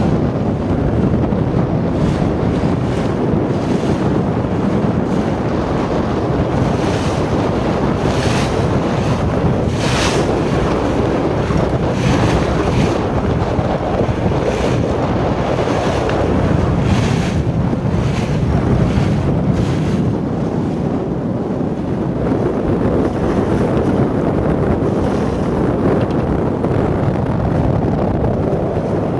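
Wind buffeting the microphone over the rush of water past the hull of a moving tour boat. Several brief hissing surges come between about seven and twenty seconds in.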